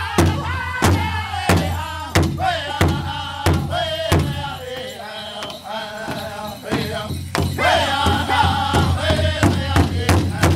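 Powwow drum group: several men singing together over a large powwow drum struck in unison with drumsticks. The beat is steady at about one and a half strokes a second, drops away for a few seconds midway while the singing carries on, then comes back quicker, about three strokes a second, near the end.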